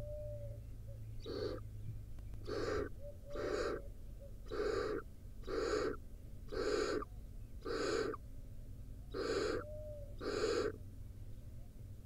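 Barn owl nestlings giving repeated rasping, hissing calls, the food-begging 'snoring' of barn owl chicks: nine calls of about half a second each, roughly one a second, the first one weaker. A few faint short whistle-like notes come between them.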